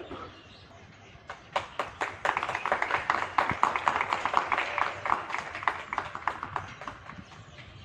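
A small crowd's hand clapping that breaks out about a second in, builds quickly and thins out near the end, greeting the national flag as it is unfurled at the top of the pole.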